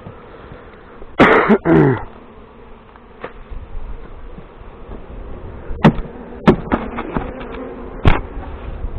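Honeybees buzzing steadily around an opened hive being combined. About a second in comes a loud, short burst whose pitch falls sharply, and in the second half there are several sharp knocks.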